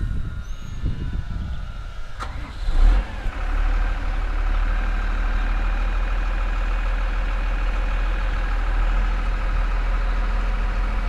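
Farm tractor's diesel engine running close by, getting louder about three seconds in and then running steadily.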